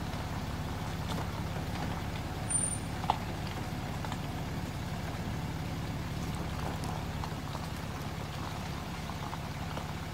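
A steady low rumble, like an engine running at idle, with a few faint ticks and one sharp tap about three seconds in.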